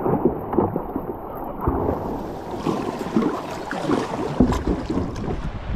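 Churning white water breaking over and around a sit-on-top kayak as it is paddled through surf, with repeated splashes and slaps of water against the hull and wind on the microphone. Muffled at first, turning brighter and hissier about two seconds in.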